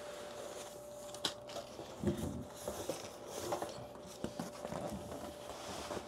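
Cardboard TV box being opened and its cardboard insert handled: rustling and scraping with a few light knocks and clicks, the loudest a dull bump about two seconds in. A faint steady hum runs underneath.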